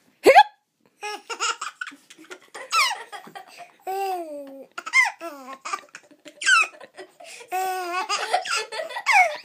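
A single sharp hiccup, the loudest sound, then high-pitched laughter in repeated bursts that rise and fall in pitch.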